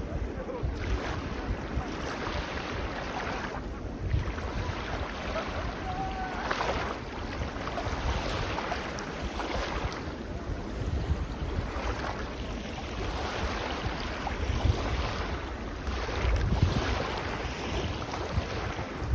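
Small sea waves washing onto a beach, swelling and fading every couple of seconds, with wind buffeting the microphone as a steady low rumble.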